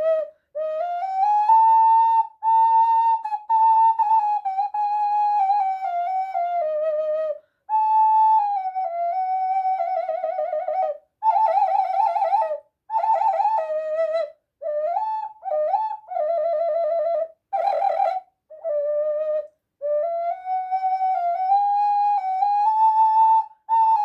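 A 4-hole ocarina playing a slow melody of held notes, with short breaks between phrases; in the middle of the passage come fast warbling trills.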